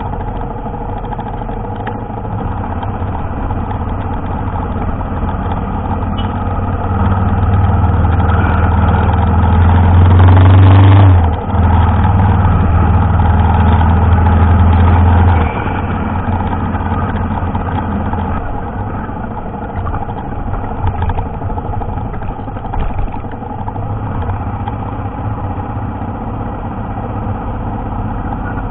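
Motorcycle engine running under way through town streets; it builds and gets louder about a quarter of the way in, dips for a moment at its loudest, holds, then eases back a little past halfway.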